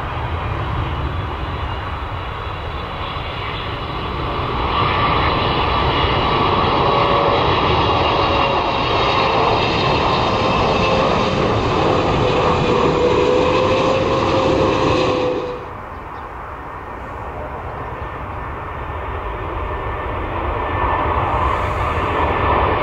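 Jet engines of a Boeing 777 on final approach with gear down: a steady rumble with a whine that wavers slightly in pitch, growing louder about four seconds in. About two-thirds of the way through it cuts off suddenly to the quieter rumble of a four-engine Boeing 747 freighter on approach, which grows louder again near the end.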